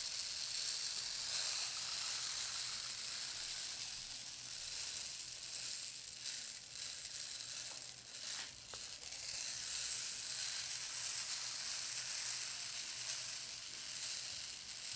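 Rain stick being tipped, its seeds trickling down past the obstacles inside in a steady rain-like hiss. The hiss fades briefly about eight seconds in, then picks up again.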